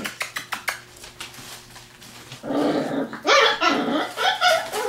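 Border collie puppies play-fighting, growling and yapping repeatedly from about halfway in, after a few light clicks near the start.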